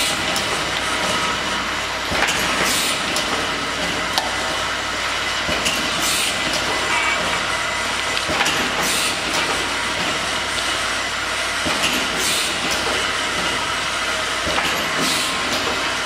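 Automatic glass-vial bottling line running: a steady machine din from the conveyor and rotary turntable, with small glass vials clicking against one another and the guide rails. A short hiss comes about every three seconds.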